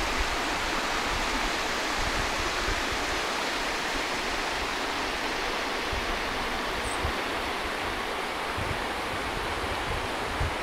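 Steady rushing of a flowing stream, even and unbroken, with faint uneven low rumbles underneath.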